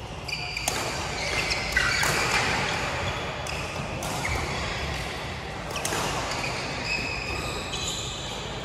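Badminton play: irregular sharp hits of rackets on the shuttlecock, with short high squeaks of court shoes on the floor.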